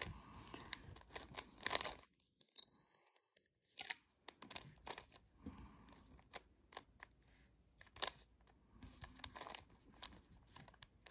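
Plastic speed cube being turned by hand: irregular clicks and clacks as the layers snap round, with a silent gap of about two seconds a couple of seconds in.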